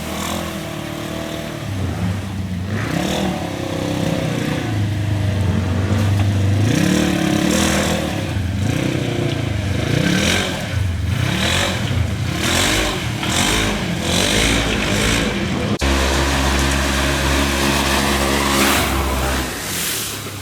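Side-by-side UTV engine revving up and down again and again as it is driven hard off-road. About 16 seconds in, the sound cuts abruptly to a steadier, deeper engine note.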